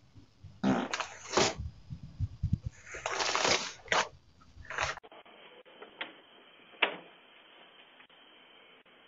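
Farting picked up by a video doorbell's microphone: several short bursts and one longer hissing one in the first half. After a cut there is only faint hiss and a couple of clicks.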